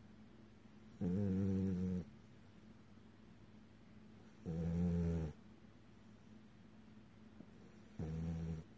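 French bulldog snoring in its sleep, a snore that comes with its short, snubby nose. There are three snores about three and a half seconds apart, each lasting about a second.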